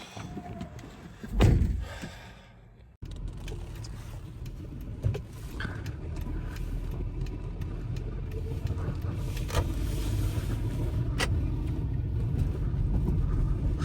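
A car running, heard as a steady low rumble of engine and tyres that grows gradually louder, with a few faint clicks. Before it, about a second and a half in, there is a single heavy thump.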